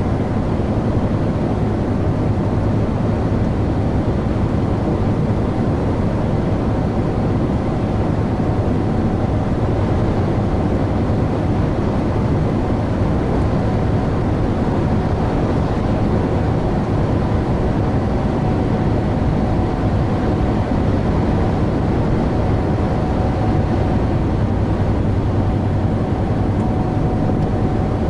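Semi-truck's engine and tyres droning steadily inside the cab at cruising speed: an even low hum with road noise, unchanging throughout.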